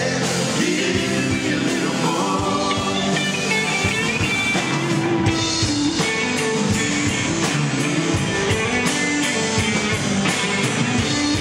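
Rock-style music with guitar and singing, playing steadily.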